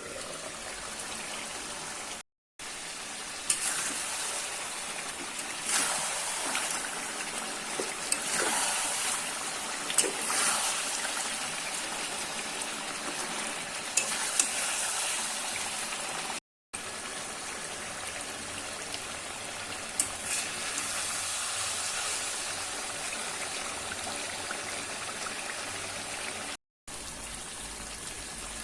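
Chicken and masala frying and sizzling in a pan: a steady high sizzle with scattered sharp clinks of a spoon or spatula against the pan.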